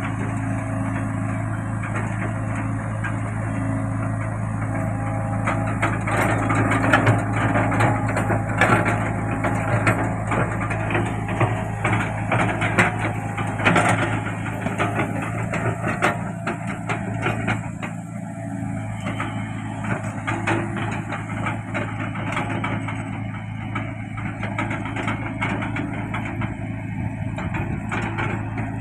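Tracked mini excavator's diesel engine running steadily under load. Clanks and knocks from the working machine come through, most often in the middle stretch.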